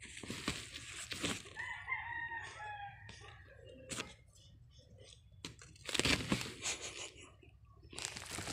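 Crumpled plastic tarp crinkling in several sharp bursts as a kitten paws and scratches at it, loudest about six seconds in. About two seconds in, a rooster crows in the background: one drawn-out, slightly falling call.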